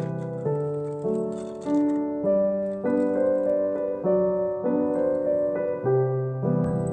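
Background music: a gentle piano-like keyboard melody with a new note or chord about every half second.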